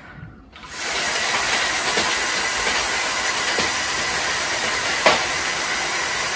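Lego Technic tank's twelve Powered Up L motors, gearing and plastic tracks whirring steadily as it turns on the spot, starting under a second in, with a single click about five seconds in.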